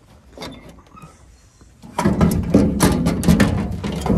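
Engine hood of a Kubota F3060 ride-on mower being lowered and pushed shut: a few faint clicks, then a quick run of clunks and rattles from about two seconds in.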